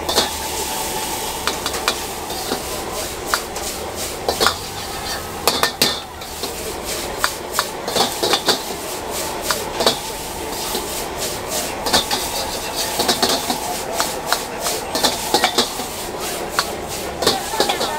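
Metal wok ladle scraping and clanking against a black iron wok as noodles are stir-fried and tossed over a high flame, with many quick irregular strikes over a steady sizzle.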